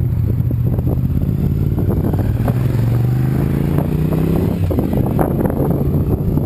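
2006 Honda RC51 (VTR1000R) V-twin with an Akrapovic exhaust riding past at speed. Its note rises as it closes in, then drops as it goes by about two-thirds of the way through.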